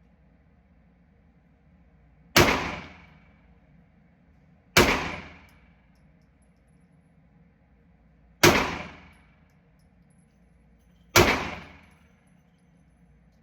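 Four single pistol shots fired slowly, two to four seconds apart, each followed by a short fading echo.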